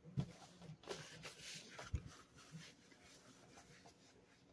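Faint handling noises: a soft thump near the start, a stretch of rustling, and another thump about two seconds in.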